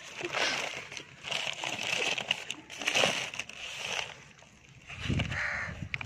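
Crinkling and rustling of newspaper lining a crate of mangoes as it is folded back and the fruit is handled, in irregular crackly bursts. A louder, lower sound comes about five seconds in.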